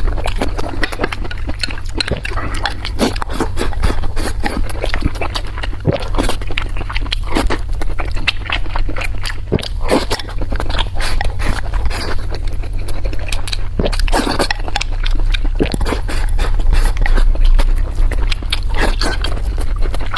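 Close-miked eating: continuous wet chewing, lip-smacking and biting, many small clicks a second. A steady low hum runs underneath.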